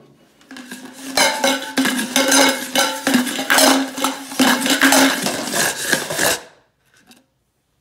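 Dice rattling and clacking in a can worked over a hard tile floor for a dice-stack trick: a dense run of clicks with a steady hum underneath, cutting off abruptly about six seconds in.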